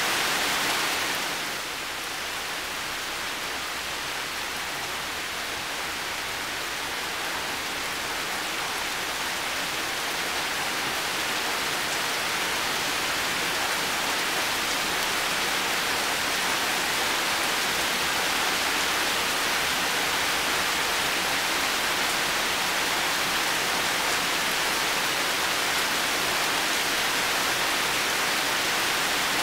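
Heavy rain falling steadily, a dense even hiss with no separate drops standing out. The level dips a little about a second and a half in, then slowly builds back.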